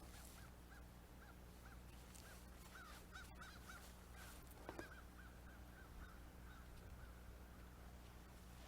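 A bird calling faintly, one short note repeated two or three times a second and fading out near the end, over a steady low hum; a light knock about halfway through.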